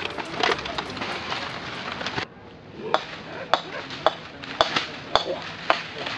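A dense, even rustling noise that cuts off suddenly about two seconds in, followed by sharp, short knocks with a slight ring, about two a second.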